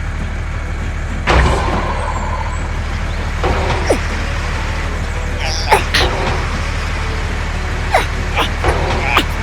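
A small engine runs steadily with a low hum. There is a sharp knock about a second in, and several short sliding squeaks or chirps over the hum later on.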